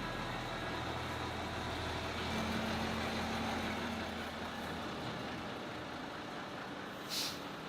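Steady industrial machinery noise, an even rumbling hiss with no clear rhythm, with a short hiss near the end.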